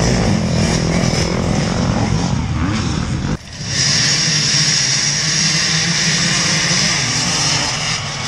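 Dirt bike engines revving and accelerating away from the start of an off-road race. About a third of the way in the sound dips sharply for a moment, then returns as a steady high hiss over engines running underneath.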